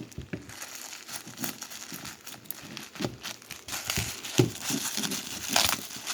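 Packaging crinkling and rustling by hand, with scattered sharp crackles, as a pack of figures is unwrapped.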